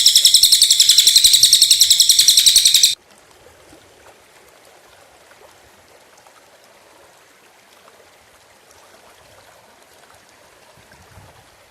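A small bird's high, sharp call repeated rapidly, about seven pulses a second, cutting off suddenly about three seconds in; after that only a faint hiss remains.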